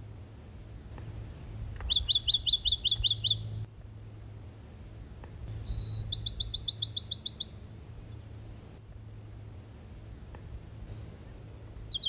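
Bachman's sparrow singing three songs. Each is a clear held whistle followed by a rapid trill of repeated notes, and the third starts near the end.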